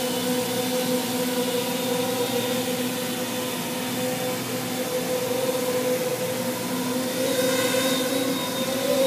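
Custom-built quadcopter's propellers and electric motors humming steadily as it hovers low. Near the end the pitch wobbles and the hum grows a little louder.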